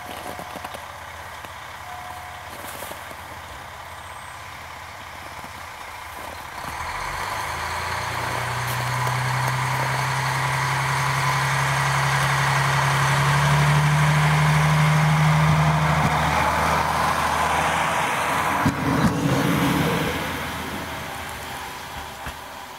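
JR Hokkaido KiHa 40 diesel railcar pulling away: its engine idles quietly at first, then about six seconds in throttles up to a steady drone that rises slightly in pitch and is loudest as the car passes close by. A short clatter of wheels on the rails comes near the end, and then the sound fades.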